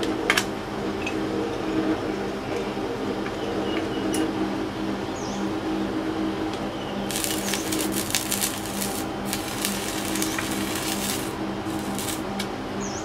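Steady electrical hum of an electric melting furnace, a low drone made of several even tones. For several seconds in the middle there are bursts of crackling hiss.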